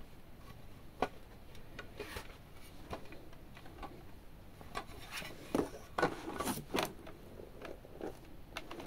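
A glass-topped digital bathroom scale being handled and fitted into its cardboard packaging insert: irregular clicks, light knocks and cardboard scraping, with a cluster of louder knocks and scrapes about five to seven seconds in.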